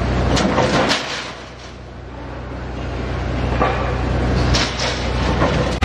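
A workshop machine running with a steady low hum that swells midway, with scattered sharp metal knocks and clanks.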